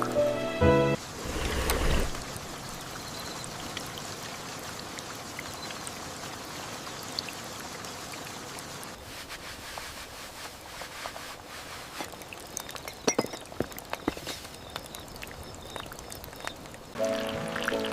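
Steady rain with scattered drips and taps, a few sharper drops coming about twelve to fourteen seconds in. A short swell of noise comes about a second in, and soft music plays at the very start and again near the end.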